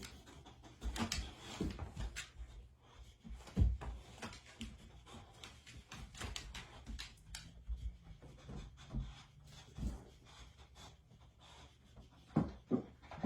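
Scattered light knocks and scuffs of a dog moving about and nudging search boxes while hunting a scent.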